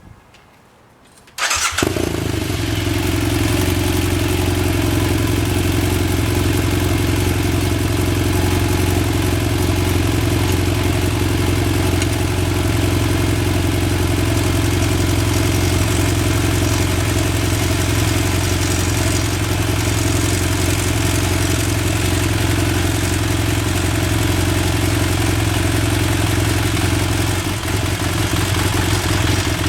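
BMW F800 motorcycle's 798 cc parallel-twin engine starting about a second and a half in, then idling steadily. This is the first start after a mechanical cam chain tensioner has been fitted in place of the stock one.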